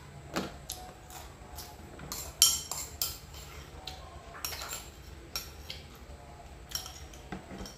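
Metal spoon clinking and scraping against a rice bowl while scooping rice: a scattering of short sharp clicks, the loudest about two and a half seconds in.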